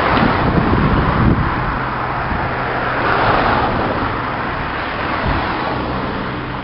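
Steady rumble and hiss of moving vehicles, swelling about three seconds in, with a JR East 651 series electric train rolling along the depot tracks.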